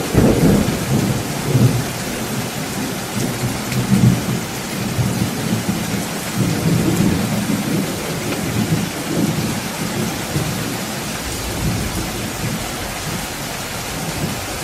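Heavy typhoon rain as a steady hiss, with gusting wind buffeting the microphone in irregular low rumbles, strongest right at the start and about four seconds in.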